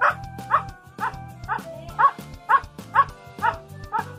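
Siberian husky barking in an even series, nine sharp barks at about two a second, counting out the number ten on cue.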